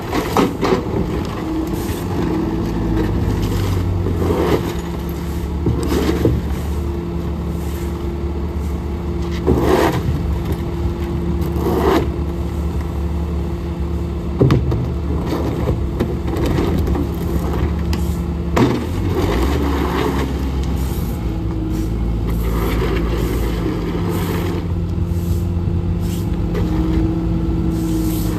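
Heavy equipment engines running steadily at idle, a wheel loader and a rear-loader garbage truck, with about eight short scrapes and knocks at irregular spacing as a trash bin and burnt debris are dragged and shoveled on the pavement.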